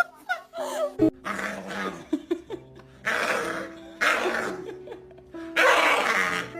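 A dog making four harsh, noisy vocal bursts, over background music.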